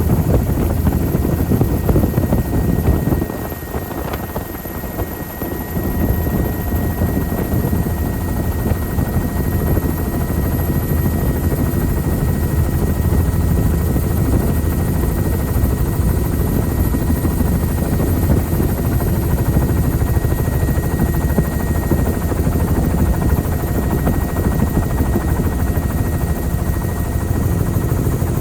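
Helicopter in flight: a loud, steady low rumble of rotor and engine with a thin, steady high whine over it. The rumble drops briefly about three seconds in, then returns.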